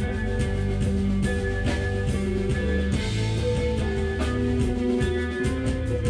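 Live rock band playing: electric guitars holding and shifting notes over a drum kit, with regular drum and cymbal hits.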